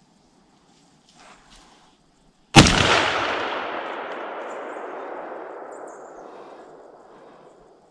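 A single shotgun shot about two and a half seconds in, its echo rolling away and fading over several seconds.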